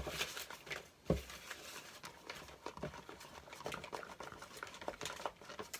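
Slime being mixed, with irregular small sticky clicks and crackles and one soft thump about a second in.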